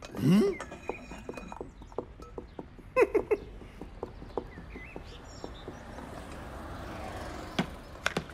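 Junk being rummaged through: scattered light knocks and clicks with a growing rustle, ending in two sharp clicks near the end. Short wordless vocal grunts come at the start and about three seconds in.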